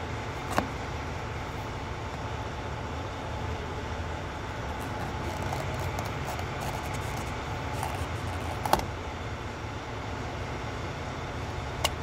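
Metal pry tool working in a truck steering-wheel hub: three sharp metal clicks, about half a second in, near nine seconds and near the end, with faint scraping between, over a steady low rumble.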